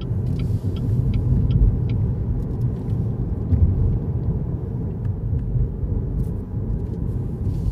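Cabin noise of a Cadillac ATS driving along a city road: a steady low rumble of tyres and engine, with a few faint ticks in the first couple of seconds.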